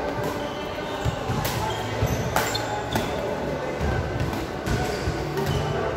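Badminton rackets striking the shuttlecock and players' footwork on the court during a doubles rally in a large indoor hall: a series of sharp, irregular hits.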